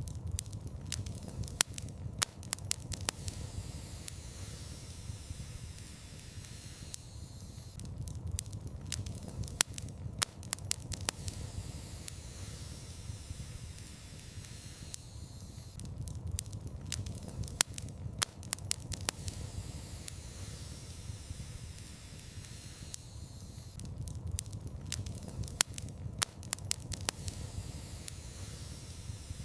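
Fireplace fire crackling, with clusters of sharp pops that come back about every eight seconds over a steady low rumble and hiss.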